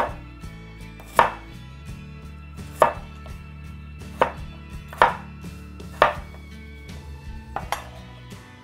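Cleaver chopping through a cucumber onto a wooden cutting board: a string of sharp chops, irregularly spaced about a second apart, six or seven in all.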